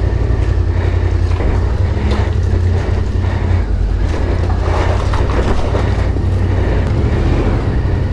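Yamaha Ténéré 700's parallel-twin engine running steadily at low revs as the motorcycle creeps over an icy surface inside a stone tunnel.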